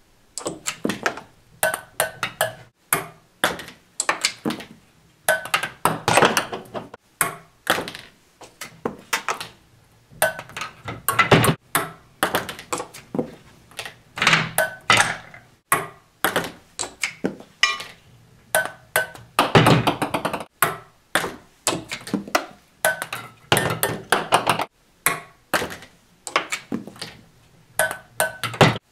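A ping-pong ball bouncing and rolling on wooden track pieces, with wooden rings and blocks knocking and clattering as they are struck and topple. A rapid run of sharp taps and thunks, some with a short ringing ping, that starts and stops again and again as attempt follows attempt.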